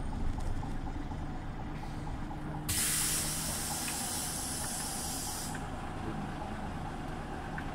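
Scania OmniLink CL94UB city bus running steadily, with a sudden loud hiss of compressed air from its pneumatics about three seconds in, lasting nearly three seconds and cutting off.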